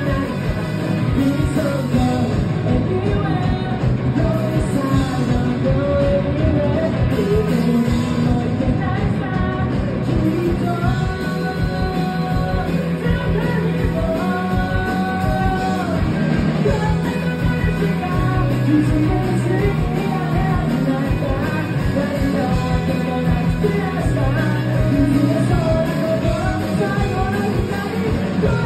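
Rock band playing live to a crowd: electric guitars, drums and a singer, with several long held vocal notes in the middle.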